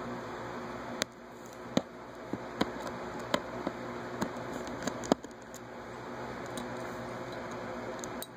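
Small precision screwdriver clicking against the screws and plastic back housing of a Samsung Galaxy S as the screws are backed out: sharp clicks about once a second over a steady hiss.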